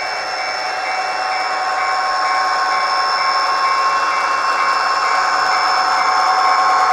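ESU LokSound decoder in a Kato HO-scale SD45 model playing its diesel locomotive engine sound through the model's small speaker, a steady mechanical running with several constant high whining tones, slowly growing louder.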